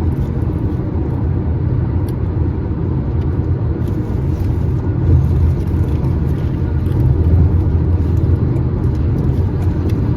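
Steady low rumble of road noise inside a moving car's cabin: tyres on the road, with the air conditioning running.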